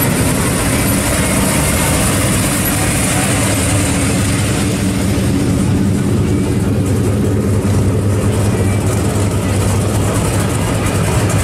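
Classic Chevrolet engines idling as the cars roll slowly past at walking pace. A steady low exhaust note gets stronger in the second half as the orange Chevy II Nova approaches, over crowd chatter.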